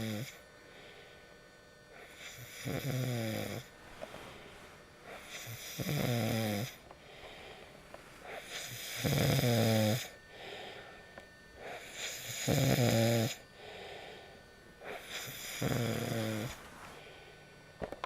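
A person snoring in a steady rhythm, one pitched snore roughly every three seconds, each lasting about a second, with a softer breath in between.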